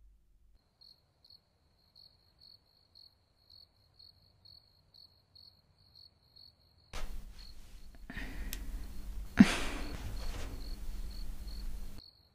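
Faint cricket chirping: short high chirps, about three a second, evenly spaced. About seven seconds in, a louder hiss and hum of room noise comes in under the chirps, with one sudden short sound about two seconds later.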